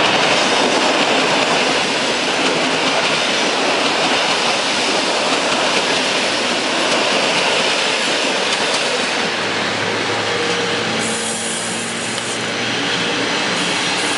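Passenger trains passing at close range: an SKM electric multiple unit runs by right in front while an electric-locomotive-hauled express passes on the far track. The sound is a steady, loud rush of wheels on rail, with a low hum partway through.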